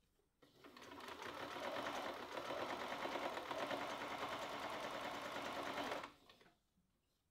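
Elna electric sewing machine stitching binding onto a quilt: it starts about half a second in, picks up speed over the next second, runs at a steady rapid stitch, then stops about six seconds in.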